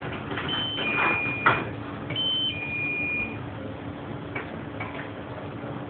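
An electronic two-note chime, a higher tone stepping down to a lower one, sounds twice. Under it runs the steady hum of the kitchen's extraction hood, with clatters of utensils, one sharp knock about a second and a half in.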